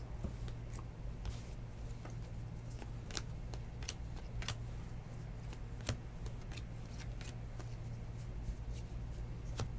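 Baseball cards being flipped through one by one in the hands, the card stock sliding and flicking against itself in soft, irregular clicks and rustles, over a steady low hum.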